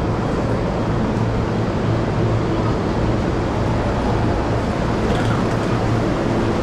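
Steady background noise of a busy railway station, a dense even wash of sound over a continuous low hum.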